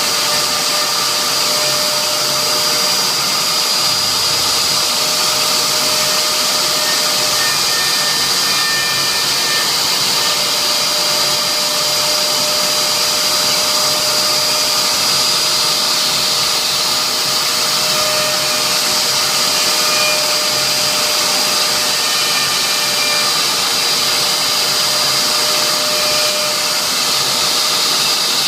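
CNC router spindle running steadily while engraving a signature board: a loud, even whine with a constant high tone over a hiss of cutting noise.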